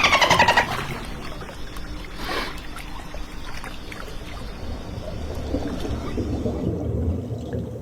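Dolphin burst-pulse call, a rapid buzzing train of clicks falling in pitch, that stops about half a second in. It gives way to steady water noise with a low rumble.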